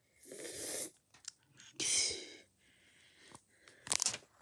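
Paper crinkling in three short bursts as a cat steps about on sheets of newspaper, with small clicks in between.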